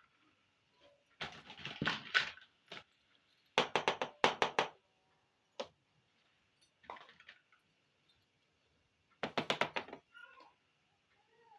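Small plastic toy kitchen pieces being handled, clicking and rattling in three short bursts with single taps between.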